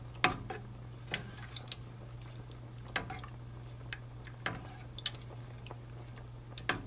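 A spoon stirring thick, creamy chicken soup in a pot: wet sloshing, with short, irregular knocks and scrapes of the spoon against the pot every second or so.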